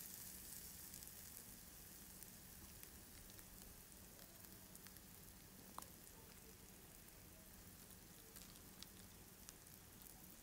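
Faint sizzle of chopped onion and garlic sautéing in hot oil in a frying pan, with scattered small pops and a sharper click about six seconds in.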